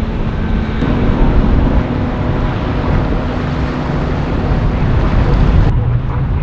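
Motorboat engines running, with heavy wind buffeting the microphone and some surf noise. The engine note steps up about a second in, and the sound changes abruptly near the end.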